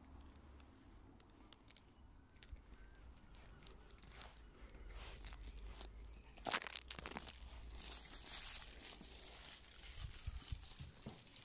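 Faint rustling and crinkling of handling, with soft footsteps, and a sharp click about six and a half seconds in as the lever handle of a uPVC door is pressed and the door is pushed open.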